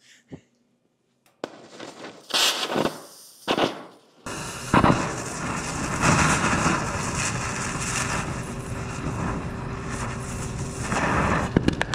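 An iPod hissing and crackling as a 2,000-watt laser burns into it, sending up flame and sparks. The sound starts suddenly about four seconds in and then runs on steadily, after a few brief knocks and rustles.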